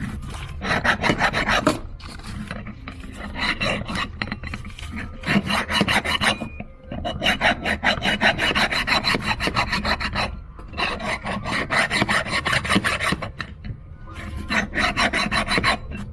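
Hand file rasping across the metal mating surface of a Holley 94 carburetor in a run of strokes with short breaks between them, flattening the surface so the gasket will seal.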